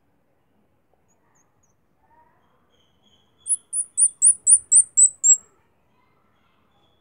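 Newborn squirrel pup squeaking: a run of eight very high, thin chirps, each sliding down in pitch, about four a second, starting about halfway through, the last few a little lower.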